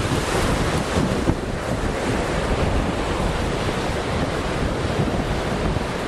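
Wind buffeting the microphone, a steady rough rumble, over the wash of the sea.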